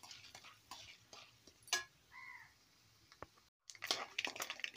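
Mustard seeds, chana dal and urad dal frying in hot oil in a kadai: faint scattered pops and crackles, with one sharper pop just under two seconds in. Near the end a spoon stirs them, scraping the pan.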